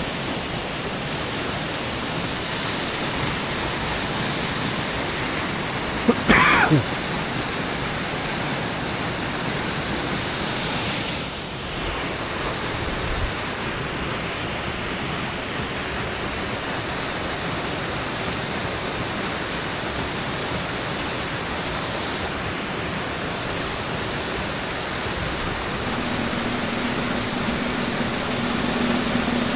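Steady rushing noise, with a brief louder sound about six seconds in and a low steady hum coming in near the end.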